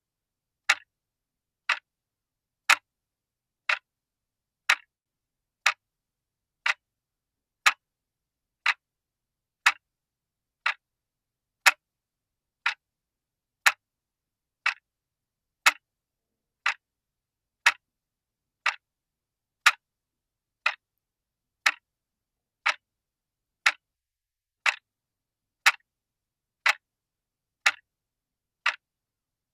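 Clock ticking, one sharp tick about every second, steady and even, with silence between the ticks.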